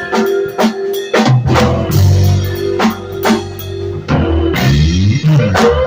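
Live band playing an instrumental passage: drum kit keeping a steady beat with bass and guitar, and sliding notes near the end.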